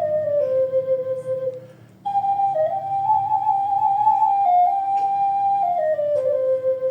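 Ocarina playing a slow melody: a note stepping down to a long held low note, a short break about two seconds in, then a higher phrase that steps back down to another long held low note.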